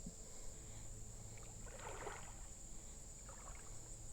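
Water splashing and sloshing in a shallow creek, two short splashes about two seconds in and again a second later, over a steady high drone of crickets.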